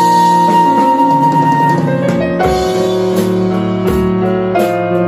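A flute holds one long note over a piano backing, then drops out while the piano chords and a drum kit play on alone.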